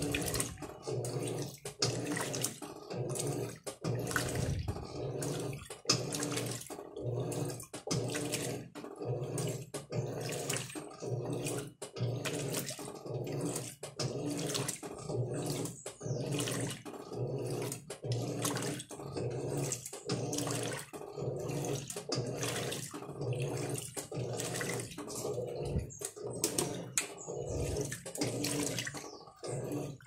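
Electrolux LM08 8 kg top-load washing machine agitating a load of clothes in water: the motor hums and the water sloshes in an even rhythm as the agitator swings back and forth, about once a second.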